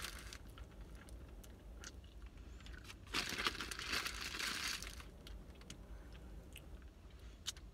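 Foil-and-paper sandwich wrapper crinkling as it is handled, loudest for about two seconds in the middle, with some chewing.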